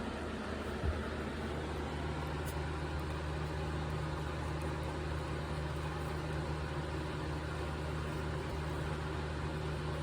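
Box fan running steadily: an even rush of air over a low, constant motor hum, with a small knock about a second in.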